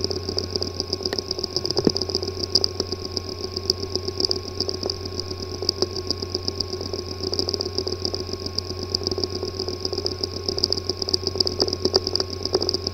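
Hard disk drive with a physically damaged disk assembly, powered and running: a steady whirring hum overlaid by a fast, irregular run of clicks and ticks, the clicking a damaged drive makes when it cannot be accessed.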